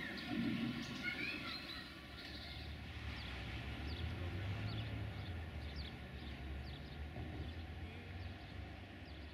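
Birds chirping and calling over a steady low engine rumble, which swells a few seconds in and fades near the end.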